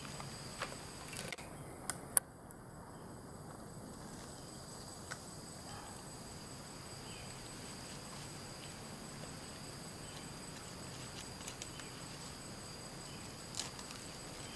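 Steady high insect drone from crickets or cicadas, with a few soft clicks and rustles in the leaf litter and one sharp click about two seconds in.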